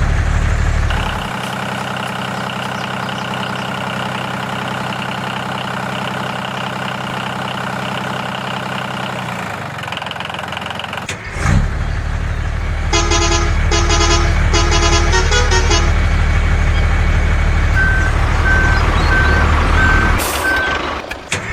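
Motor vehicle engine running steadily. After a short break it comes back louder. Partway through there are four short horn honks, and near the end a run of about five short high beeps.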